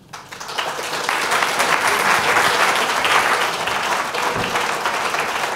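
A large audience applauding. The clapping builds up over the first second, then holds steady.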